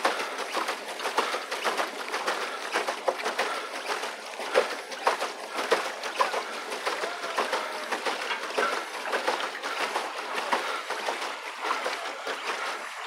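Water splashing and sloshing, churned by a pedal boat's paddle wheel, as a dense run of small irregular splashes.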